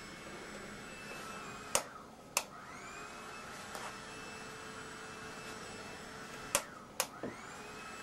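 A hair dryer that has been submerged in water runs steadily with a faint whine. Twice, a pair of sharp clicks about half a second apart breaks the noise, and after each pair the whine rises back up to pitch as the motor spins up again.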